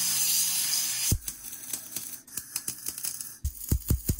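An angle grinder grinds steel with a steady hiss that stops abruptly about a second in. Then a welder tacks a brace onto the steel tube frame, its arc crackling and popping irregularly, with a few sharper pops near the end.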